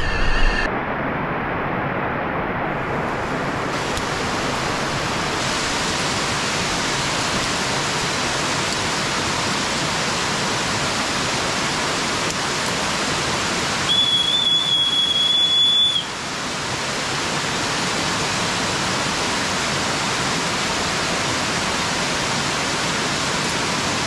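Waterfall water rushing steadily as an even noise. About halfway through, a steady high tone sounds for about two seconds.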